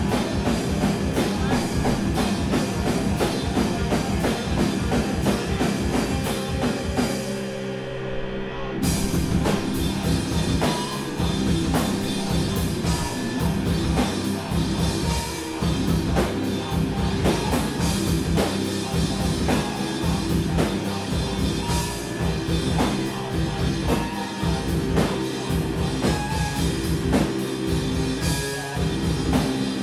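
Live instrumental rock band playing loudly: distorted electric guitar over a pounding drum kit, heard from the back of the room. About seven seconds in the drums drop out, leaving held low notes, and the full band crashes back in about two seconds later.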